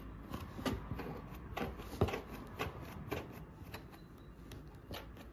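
A baby's hands patting and scratching at a cardboard box: irregular light taps and scrapes, two or three a second, the sharpest about two seconds in.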